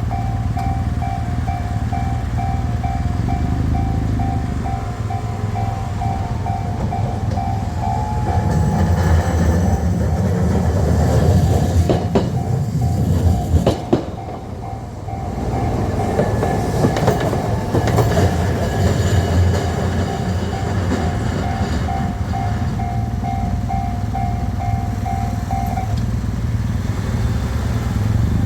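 Level-crossing warning bell ringing in a rapid, steady repeat while two Kagoshima City streetcars pass over the crossing one after the other. The first passes about a third of the way in and the second a little past halfway, each with a heavier rumble and wheel clicks over the rail joints. The bell stops a couple of seconds before the end.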